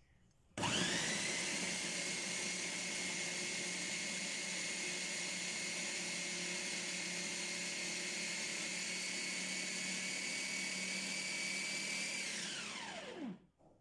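Electric food processor motor spinning up about half a second in and running steadily at high speed as its blade chops red onion and green chillies. Near the end it is switched off and winds down with a falling whine to a stop.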